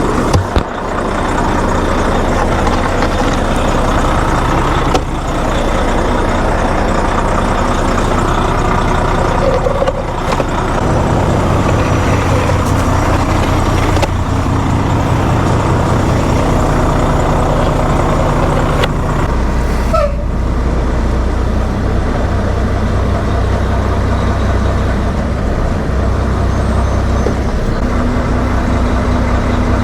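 Heavy truck's diesel engine running steadily, a low drone that shifts in pitch about a third of the way in and again about two-thirds in.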